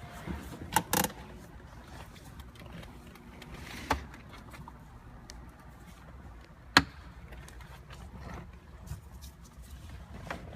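Plastic trim and parts being handled while dismantling a BMW 3 Series centre console around the gear selector: a few sharp clicks and knocks with light scraping, the loudest a little over halfway through.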